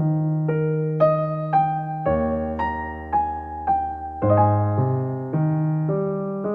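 Piano music: a slow melody of single notes, about two a second, over held bass notes.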